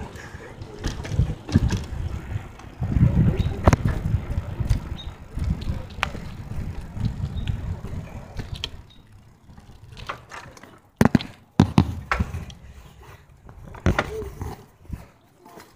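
Bicycle being ridden, heard from a camera the rider carries: a low rumble with scattered rattles and clicks that eases off about two-thirds of the way through, then a few sharp knocks.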